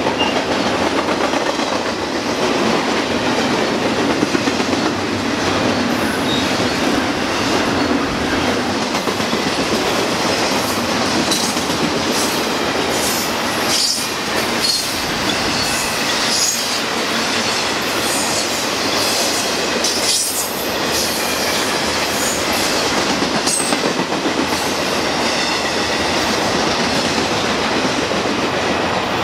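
Westbound BNSF double-stack intermodal freight train passing at speed: a steady loud rumble of steel wheels on rail, with a few knocks as wheels cross joints. Thin, high wheel-squeal tones come in from about six seconds in.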